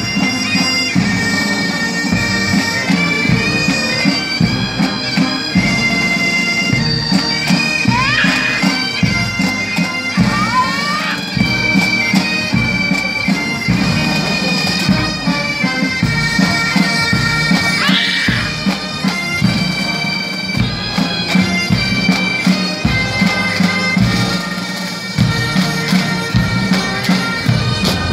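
Military pipes and drums playing a march: bagpipes carrying the melody over their steady drone, with a regular bass-drum beat about twice a second.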